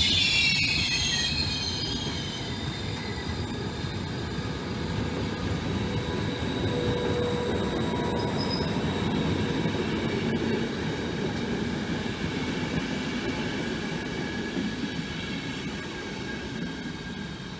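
Train passing along the line: a high metallic wheel squeal dies away within the first few seconds, followed by a steady rolling rumble that slowly fades toward the end.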